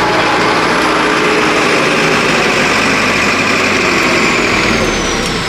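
A heavily loaded lorry's diesel engine running as the truck creeps past close by, a steady loud drone with a faint high whine slowly falling in pitch.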